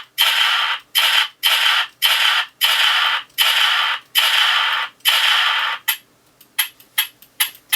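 A .44 Magnum gunshot sound effect is played through the blaster prop's small built-in speaker, about eight shots in quick succession, with no low end. Then comes a quick run of short dry clicks as the trigger is pulled with the ten-shot magazine spent.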